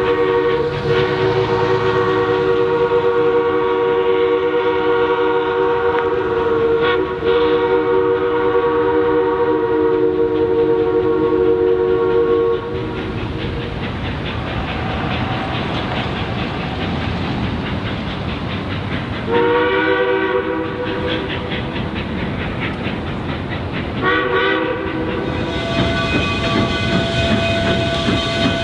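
Narrow-gauge steam locomotive whistle sounding several notes at once: one long blast, then two shorter blasts, over the rumble and clatter of the moving train.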